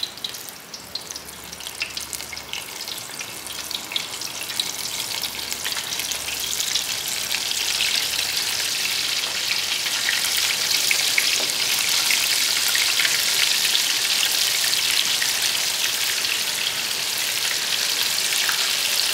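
Breaded chicken strips deep-frying in 375-degree oil in a turkey-fryer pot: a crackling sizzle. It grows louder and denser over the first several seconds as more pieces are laid in, then holds steady.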